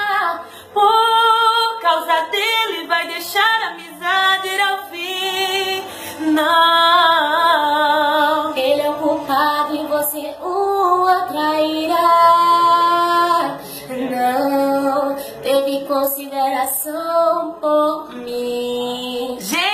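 A woman singing a slow romantic song in Portuguese, unaccompanied, with long held and wavering notes.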